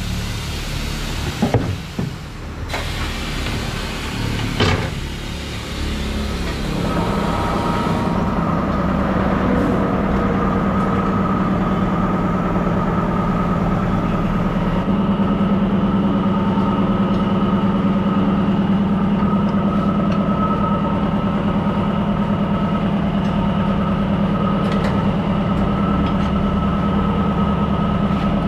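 Tyre-changing work on a motorcycle wheel at a tyre-changing machine: a couple of sharp knocks in the first few seconds, then a steady machine hum with a few clear tones from about seven seconds in.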